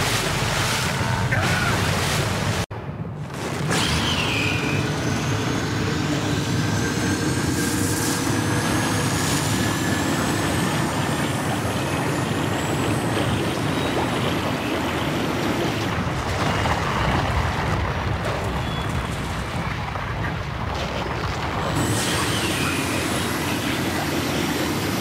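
Cartoon sound effects of a depth-charge explosion at sea, cut short, then a loud, sustained underwater rumble and rush of bubbles with several rising whooshes.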